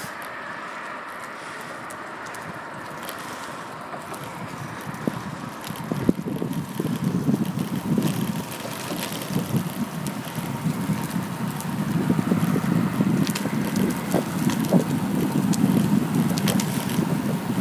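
Wind buffeting the microphone while riding along a road: a steady rush that turns much louder and gustier about six seconds in.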